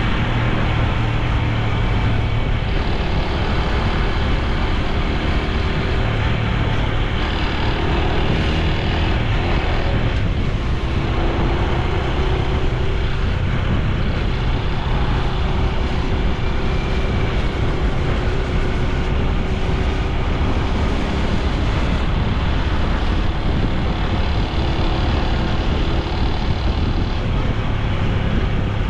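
Honda Super Cub C125's single-cylinder four-stroke engine and exhaust running steadily while riding along a street, mixed with wind noise over the camera's microphone.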